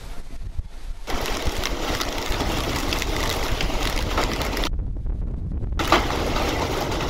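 Violent storm: gusting wind with a dense, rapid rattle of wind-driven rain and hail striking surfaces. It gets much louder about a second in and cuts out for about a second midway.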